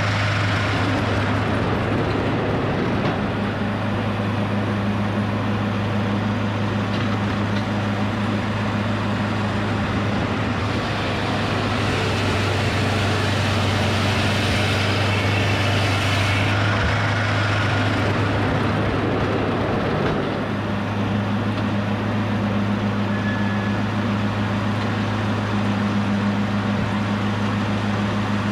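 An Edmiston hydraulic sawmill's engine running steadily at one speed, with the hiss and clatter of the mill working over it; the noisier stretch changes about ten seconds in and again around sixteen seconds in.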